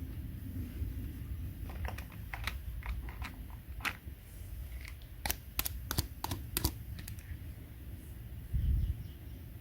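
A run of short, sharp clicks and taps, irregular and quick like typing, from about two seconds in to about seven seconds in, over a low rumble. A dull thump comes near the end.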